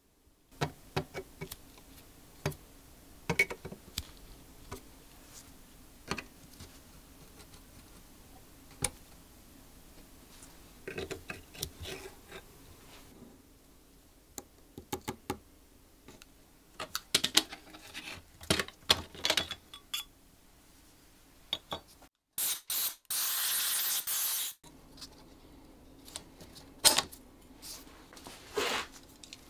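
Small metal clicks, taps and clinks as the iron parts of an antique furniture lock (pins, bolt, spring, lock case) are worked loose with needle-nose pliers on a wooden bench. About three-quarters of the way through there is a steady hiss lasting about two seconds.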